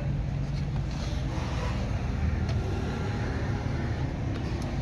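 A steady low rumble, with a few light clicks over it.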